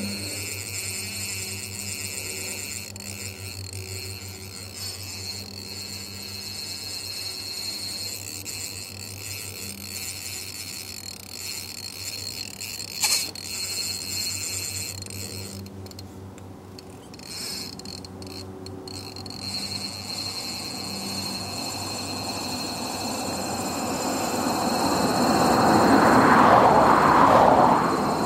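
A steady low hum with a motor vehicle passing: its rushing noise builds over the last several seconds and peaks near the end. One sharp click comes about halfway through.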